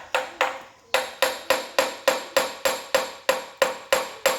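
A hammer striking a Toyota 22RE's aluminium timing cover in a quick, even run of about three blows a second, each with a ringing metallic note, to knock the cover loose. The cover stays put because a pipe is still bolted across it.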